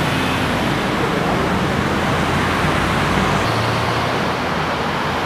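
Steady, loud rushing noise with a low hum underneath, typical of a motor vehicle engine running close by.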